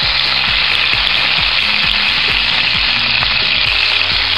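Onion, garlic, ginger and green bell pepper sizzling in oil in an electric skillet, with a steady frying hiss, while a wooden spoon stirs them, giving soft repeated knocks and scrapes against the pan.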